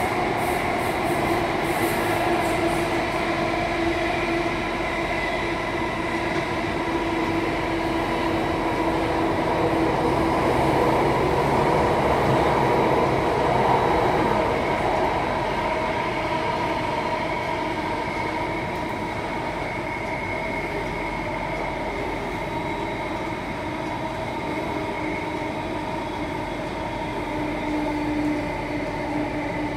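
Alstom C830 Circle Line metro train heard from inside the passenger car while running through a tunnel: a steady rumble of wheels on rail with several held hum tones from the drive. It swells to its loudest about halfway, then gradually grows quieter.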